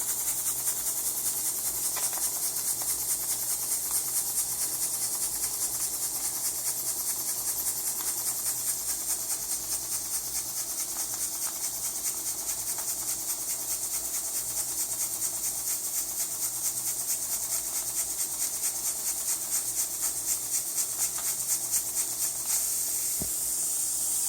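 Small homemade model steam engine, built from parts of Jensen-type engines and not yet worn in, running on steam from a cross-tube boiler: a steady steam hiss with an even, fast rhythm of exhaust puffs, several a second.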